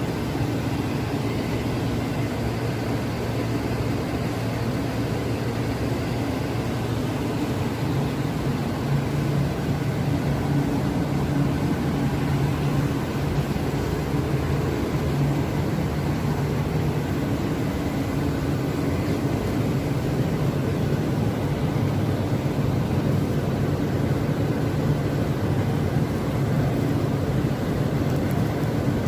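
Ssangmun Machinery garlic sorting machine running with a steady mechanical drone and a low hum.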